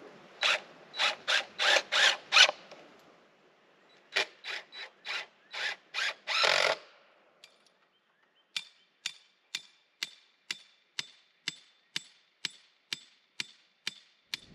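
Screws being driven by hand into a small wooden box: two runs of short rasping strokes, then a steady series of sharp clicks with a slight metallic ring, about two and a half a second.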